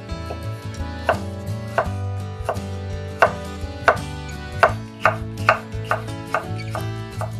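Kitchen knife slicing bell peppers into thin strips on a wooden end-grain cutting board: about a dozen crisp knocks of the blade through the pepper onto the board, coming faster in the second half.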